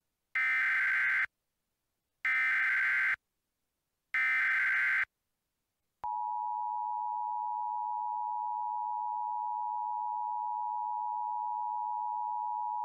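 Emergency Alert System SAME header: three bursts of warbling data tones, each just under a second long and about a second apart. Then the steady two-tone EAS attention signal comes in about six seconds in, marking the start of a new emergency alert, here a tornado warning.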